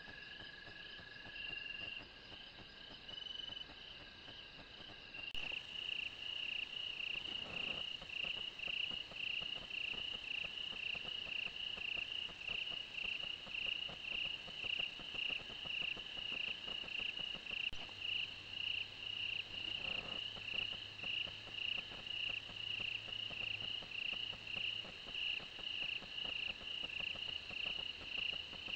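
Insects calling: a steady high trill at first. About five seconds in it gives way to a louder, evenly pulsing call that repeats about twice a second.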